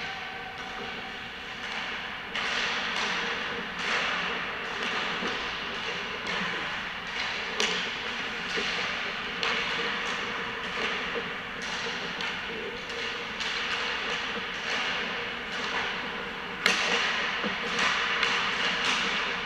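Ice hockey practice: skate blades scraping and carving across the ice in repeated swishes, with sharp clacks of sticks and pucks echoing in a large indoor rink. The loudest crack comes near the end.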